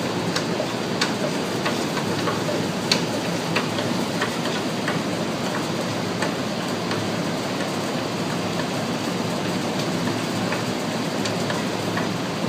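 Roller bend-test machine running as it bends a welded test strip on its root side, giving a steady mechanical noise with scattered sharp ticks and clicks.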